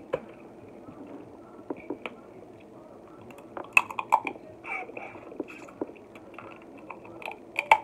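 Eating crab legs: chewing and smacking on crab meat, with short sharp clicks and snaps from handling the legs, the loudest cluster about four seconds in and another near the end.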